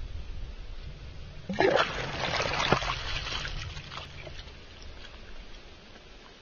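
Water from a vineyard drip irrigation line, splattering and sputtering in a sudden crackly burst about a second and a half in that fades away over the next few seconds, over a low rumble.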